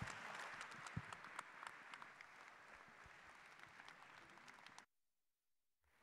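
Audience applause, many hands clapping, slowly fading, then cutting off abruptly to dead silence about five seconds in.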